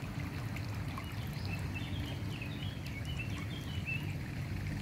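Steady running water of a shallow stream, with a small bird chirping a quick series of short notes in the middle.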